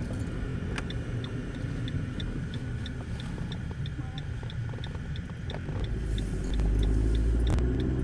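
Engine and road rumble heard from inside a moving car's cabin, growing louder about three-quarters of the way through. A faint, light ticking, about four a second, runs through the first half.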